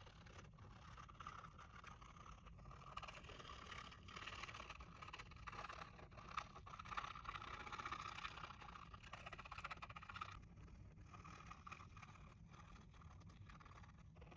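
Faint scraping and rustling with scattered light clicks, which swells from about three seconds in and eases off near ten seconds.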